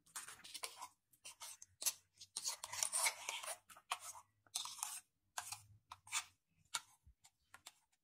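A spoon scraping and pressing thick, wet blended beetroot, carrot and apple pulp against a ceramic cup. The scraping comes in irregular strokes with short pauses, with the densest stretch in the middle.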